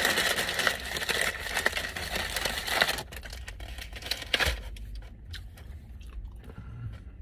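A takeout bag and its wrapping crinkling as they are handled, densely for about three seconds, then a few scattered rustles and a soft thump.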